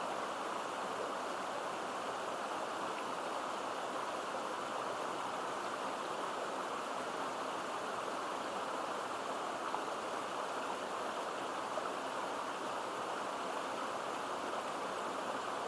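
A stream of water running steadily: an even, unbroken rush with no pauses.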